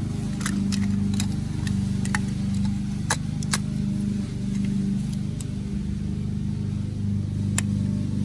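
Hard plastic toy pieces clicking as they are handled and pressed together, several sharp clicks with the strongest two close together about three seconds in, over a steady low engine hum.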